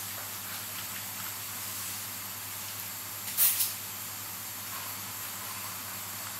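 Workbench ambience with a steady hiss and low hum, and faint light ticks of steel tweezers handling parts of a Seiko 7S26B automatic watch movement. About three and a half seconds in there is a brief, loud hissing rush, the loudest sound in the stretch.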